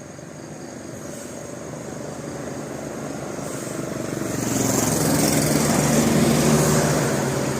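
A bus drawing near on the road, its engine and tyre noise growing steadily louder and loudest near the end.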